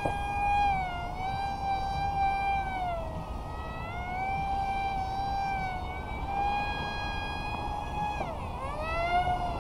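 XK A180 F-22 RC plane's electric motor and Gemfan Hurricane 3018 two-blade propeller whining in flight, the pitch rising and falling with throttle. About eight seconds in the whine drops sharply and climbs back up.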